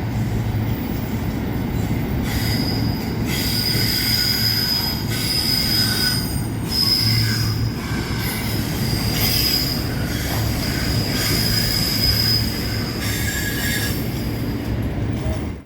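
Freight train rolling past with a steady rumble, its wheels giving a high-pitched squeal that comes and goes from about two seconds in until near the end. The sound cuts off suddenly at the very end.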